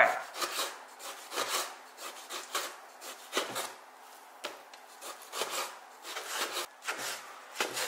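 Kitchen knife cutting pork into small cubes on a cutting board: a string of short, irregular cutting strokes, about one or two a second.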